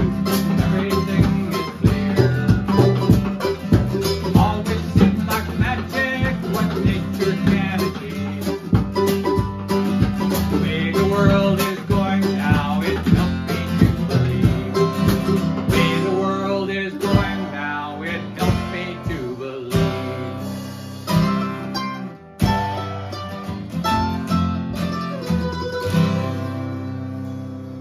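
Acoustic string band playing an instrumental passage: strummed acoustic guitar and mandolin over a drum kit keeping a steady beat on snare and cymbal. The music dies away near the end.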